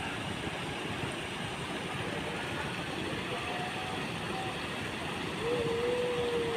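Steady rush of water from a rock waterfall pouring into a koi pond. A faint wavering tone rises over it near the end.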